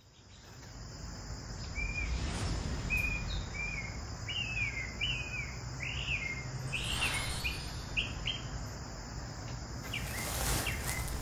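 Woodland ambience fading in: a songbird chirping in short repeated phrases over a steady high insect hiss and a low wind rumble. A few crackling noises come in near the end.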